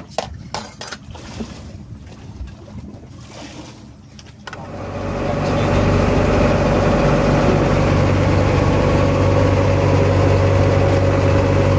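A few clicks of a metal spoon against a cooking pot, then about five seconds in the fishing boat's engine comes up over a second or so and runs steadily and loudly.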